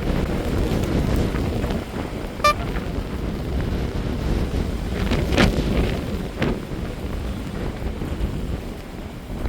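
Strong gusty wind buffeting the microphone: a steady low rumble that swells and eases, with a brief click about two and a half seconds in.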